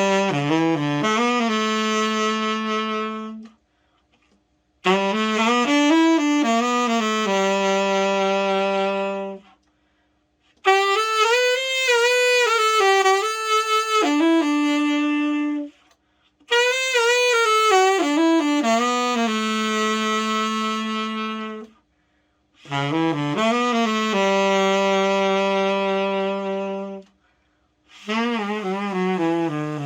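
Yamaha YTS-61 tenor saxophone played solo after its overhaul, in short melodic phrases a few seconds long. Each phrase ends on a long held note, with brief pauses between them.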